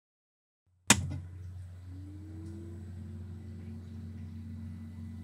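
Apple Macintosh SE/30 being switched on: a sharp click of the power switch about a second in, then the machine's steady low hum, with a tone that rises in pitch over a second or so and settles. No startup chime sounds, a fault the owner puts down most likely to failed capacitors.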